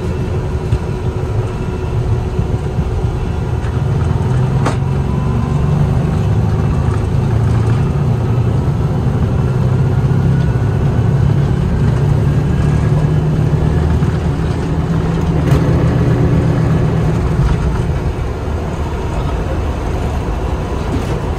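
Gulfstream IV's Rolls-Royce Tay turbofans at takeoff power, heard from inside the cockpit during the takeoff roll. A heavy low rumble builds about four seconds in, a faint rising whine runs under it, and the rumble eases near the end as the jet lifts off.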